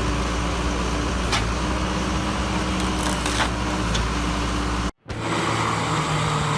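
Heavy wood-processing machinery running steadily with a low engine hum and a few sharp knocks or cracks. About five seconds in it cuts out abruptly for a moment, then a different machine picks up running steadily at a lower, steadier hum.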